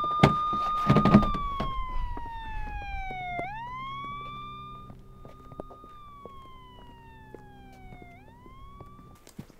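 Police siren wailing, its pitch rising, holding and slowly falling again about every five seconds, growing fainter. A few knocks and thumps are heard near the start.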